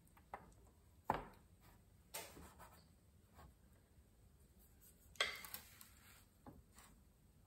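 Metal cookie scoop knocking and scraping as cookie dough is scooped from a mixing bowl and released onto a metal baking sheet. It gives a handful of scattered light taps and clicks, the sharpest about a second in, and a longer scrape a little after five seconds in.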